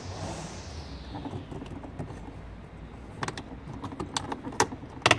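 Plastic trim being pried off a BMW E90 door's armrest pull handle with a plastic pry tool: scraping and rustling, then a run of sharp clicks from about three seconds in as the trim's clips pop loose, loudest near the end.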